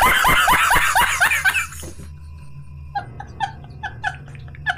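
A man laughing hard in rapid, loud 'ha-ha-ha' bursts, then after about two seconds breaking into quieter, higher, gasping bursts of laughter.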